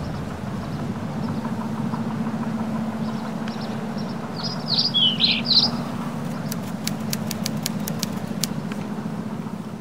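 Birds chirping a few times about halfway through, over a steady low engine-like rumble. A run of light high clicks follows near the end.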